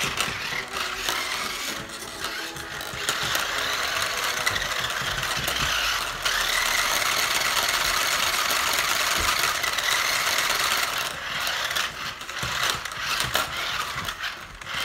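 Battery-powered remote-control stunt car's electric motors and gears whirring as it spins in place on a tile floor. The whir runs steadily for several seconds in the middle, then comes in short stop-start spurts near the end.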